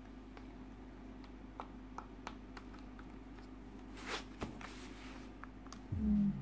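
Clicks and rustling as a UE Megaboom Bluetooth speaker is handled and turned over, then near the end a short falling tone from the speaker, the loudest sound here: its power-down sound, the speaker shutting itself off though it still has charge.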